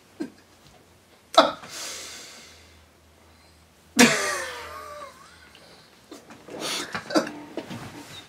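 A man making exaggerated nonverbal vocal sounds: several sudden cough-like bursts of breath that each fade away, and a wavering squeaky vocal sound about four seconds in.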